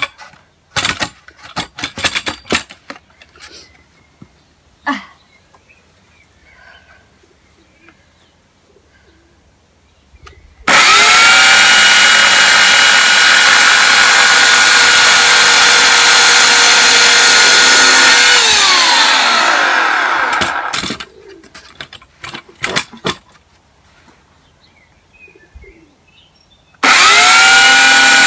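A few knocks and clatters, then a Titan electric chainsaw switches on about ten seconds in, jumping straight to full speed and running steadily for about seven seconds before winding down to a stop with falling pitch. It switches on again near the end.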